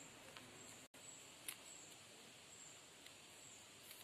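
Near silence: faint outdoor background hiss with a thin, high, broken insect trill and a couple of soft clicks. The sound drops out for an instant about a second in.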